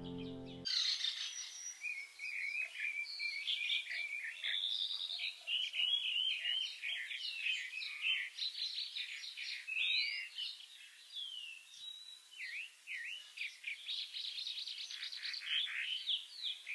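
Wild birds chirping and calling outdoors, many short rising and falling calls overlapping, after a few notes of background music cut off under a second in.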